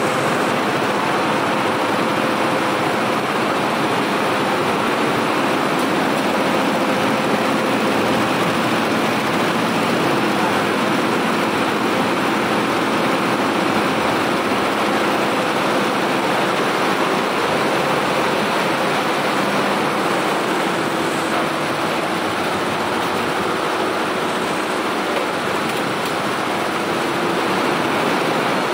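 Barudan multi-head flat embroidery machine running steadily, its heads stitching a pattern with an even, continuous mechanical noise.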